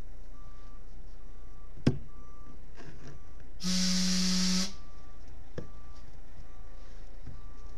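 A vehicle's reversing alarm beeping steadily about once a second. Near the middle comes a loud hiss with a low hum that lasts about a second, and there are a couple of sharp clicks.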